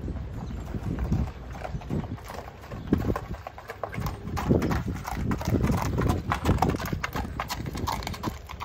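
A Thoroughbred horse's hooves striking a gravel lane in an irregular run of hoofbeats as it is led at a walk.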